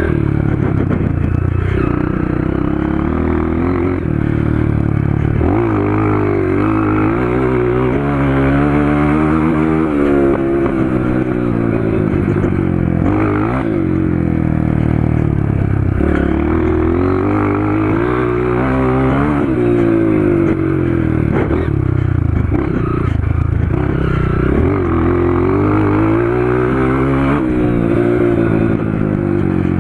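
Honda CRF230 dirt bike's single-cylinder four-stroke engine with an FMF PowerCore 2 exhaust, ridden hard: the engine note climbs under full throttle and drops back again and again, several times over.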